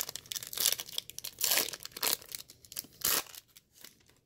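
A foil trading-card pack being torn open and its wrapper crinkled: a run of short ripping and crinkling sounds that stops a little after three seconds in.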